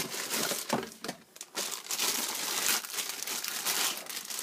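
Cardboard box and plastic wrapping rustling and crinkling as an LED floodlight is unpacked by hand, with small scattered clicks.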